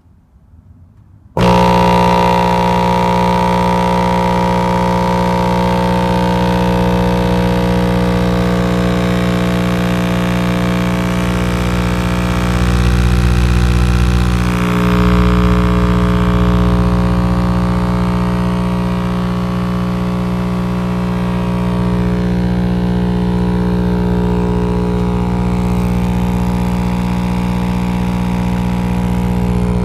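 DC Audio XL12 12-inch subwoofer wired at 2 ohms directly to a wall socket, driven by raw mains current. It cuts in suddenly about a second and a half in with a loud, steady buzzing hum full of overtones, and swells a little partway through.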